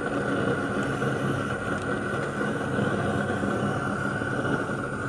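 A steady machine drone with a constant high whine over a low hum, unchanging throughout.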